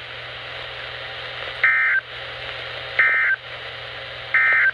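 Three short, buzzy bursts of SAME digital data tones from a NOAA Weather Radio broadcast, about a second apart over steady radio hiss: the End Of Message code that closes a weather alert.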